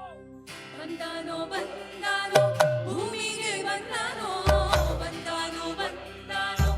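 Indian devotional music begins about half a second in: a singing voice over instruments, with heavy low drum beats about every two seconds.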